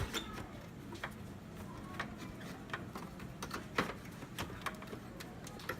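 Irregular light clicks and knocks of computer drives being fitted and seated into a Dell OptiPlex GX270 desktop case, with one sharper knock just before the four-second mark.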